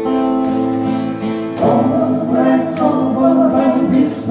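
Strummed acoustic guitars with several voices singing together in harmony. A chord is held for the first second and a half, then the singing grows louder and busier.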